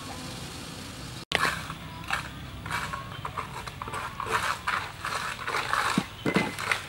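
A low steady hum from the simmering soup pot, then after an abrupt cut, irregular rustling and crackling as a hand sprinkles chopped fresh herbs over a bowl of soup.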